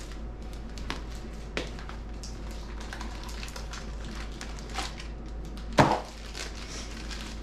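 Sunglasses and their hard case being handled: a few light clicks, then a sharper clack about six seconds in, over a steady low hum.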